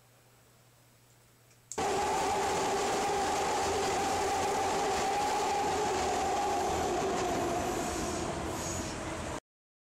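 Elevated train running over a steel girder bridge: a loud, steady rumble with a two-note whine. It cuts in suddenly about two seconds in, eases slightly near the end, then stops abruptly.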